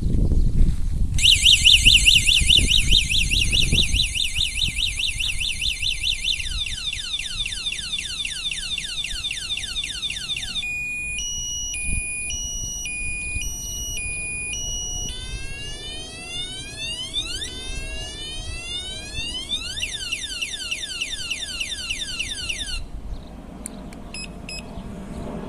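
Electronic car alarm siren cycling through its tones: a fast warble, then a slow two-tone high-low alternation, then rapid repeated whoops. It cuts off about 23 seconds in, and a few short beeps follow. A low rumbling noise underlies the first few seconds.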